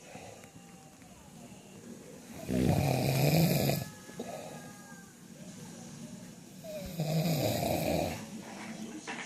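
Snoring: two snores, each about a second long, roughly four and a half seconds apart, with quiet breathing between them.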